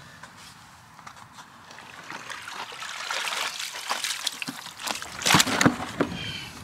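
Pond water and mud trickling and splashing as a black plastic dustbin-lid mini pond is lifted out of the wet ground and tipped, the water pouring off it. The noise builds from about two seconds in, with a few louder splashes about five seconds in.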